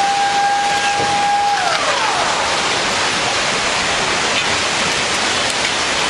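Tsunami floodwater rushing through a town street with a loud, steady roar of water and floating debris. Over it a warning siren holds one steady tone, then falls in pitch and fades out about a second and a half to two seconds in.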